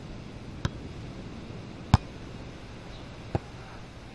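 A volleyball being struck by players' hands and forearms during a rally: three sharp slaps a little over a second apart, the middle one loudest, over a steady low background noise.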